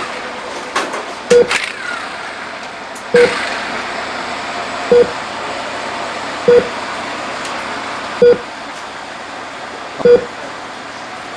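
Heart-rate monitor beeping, one short beep at the same pitch about every 1.8 seconds, over a steady background hiss.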